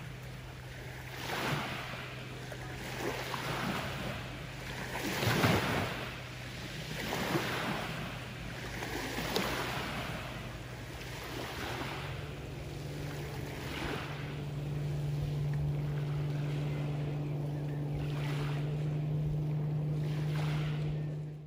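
Small waves washing onto the shore, swelling and falling every second or two, over the steady drone of a motorboat engine that rises in pitch and grows louder about halfway through.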